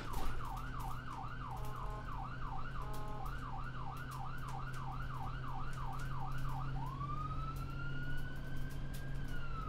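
An emergency-vehicle siren: a fast, repeating falling yelp, about two a second, briefly broken by a stepped pattern, switches about seven seconds in to a slow wail that rises, holds, then starts to fall. A steady low hum runs underneath.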